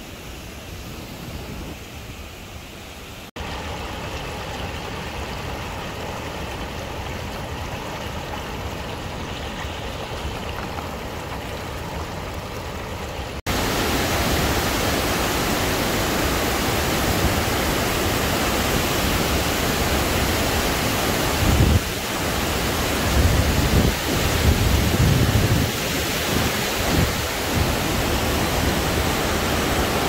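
Floodwater rushing and churning over a concrete dam's weir and spillway, a steady noise of falling water. It gets louder in two steps, about three seconds in and again near the halfway point, and a few low gusty rumbles come through about two-thirds of the way in.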